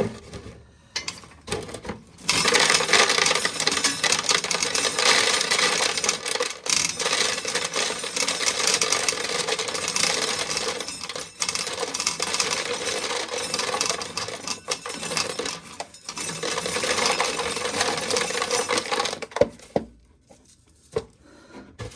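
Corn sheller stripping the kernels off a thick ear of corn, the kernels rattling into a pail. It runs for about seventeen seconds, starting about two seconds in, with a few brief breaks, and stops shortly before the end.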